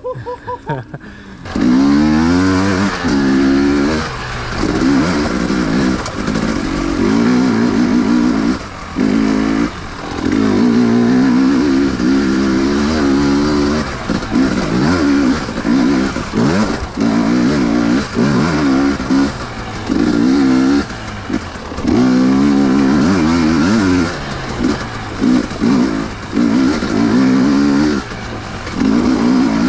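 Husqvarna TE 250i two-stroke single-cylinder dirt bike engine under a rider, the throttle opened and closed again and again so the engine pitch keeps rising and falling. It comes up loud about a second and a half in.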